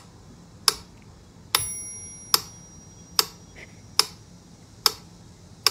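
Sharp clicks repeating evenly, about seven in all, a little over one a second; one of them, about one and a half seconds in, carries a brief ringing tone.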